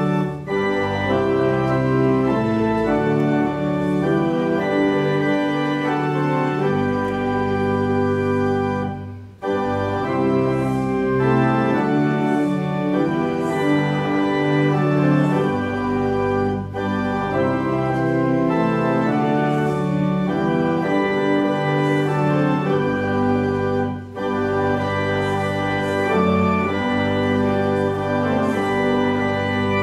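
Church organ playing a hymn tune in sustained chords, phrase by phrase, with short breaks between phrases about 9, 17 and 24 seconds in.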